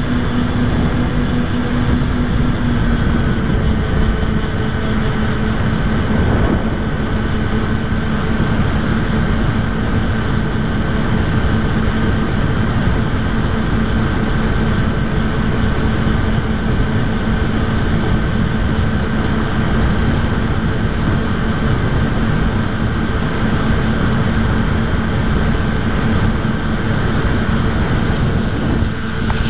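Airflow rushing over an action camera mounted on a flying model plane, with the steady whine of the plane's propeller motor running at cruise. The motor note steps down slightly about three seconds in.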